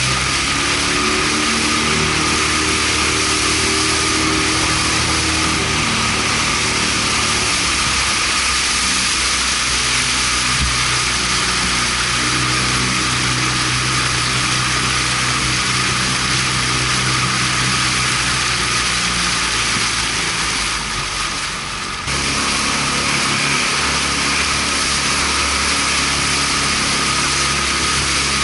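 Outboard motor of a small boat running steadily at cruising speed. Its note shifts about eight seconds in, dips slightly, then rises again just after twenty seconds as the throttle changes.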